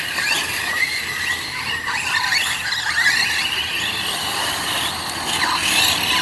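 Several large-scale electric RC trucks running together on a dirt track: a high-pitched whine from their motors and drivetrains that wavers up and down with the throttle, over a hiss of tyres on dirt.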